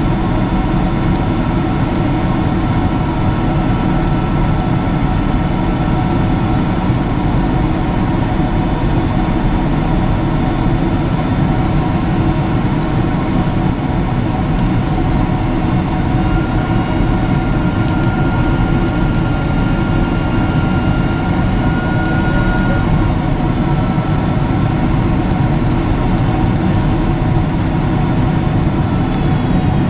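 Steady cabin noise inside a jet airliner: a loud, even rumble of engines and airflow, with several steady whining tones over it. One higher whine grows stronger for several seconds a little past the middle.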